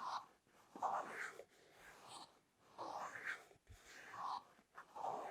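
Close-miked ASMR handling sounds: soft swishing strokes about once a second, with a few small clicks between them.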